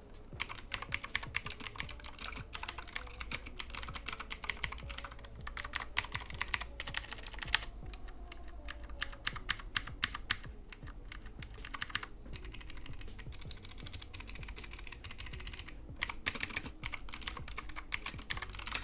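Fast typing on a CK108 mechanical keyboard fitted with Gateron green switches, heavy (80 g) tactile clicky switches that click like Blues: runs of many sharp keystroke clicks with a few brief pauses.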